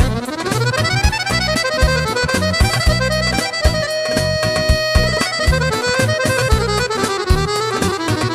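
Accordion playing a fast instrumental passage of a Bulgarian folk tune, the melody running in quick notes over a steady, regular bass beat.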